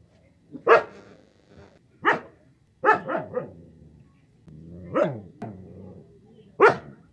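A dog barking in loud, sharp single barks with a quick run of three in the middle, about seven barks in all, spaced irregularly.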